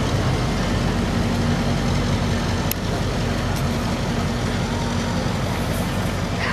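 Diesel locomotive engine running with a steady low drone that slowly fades a little, with one sharp tick near the middle.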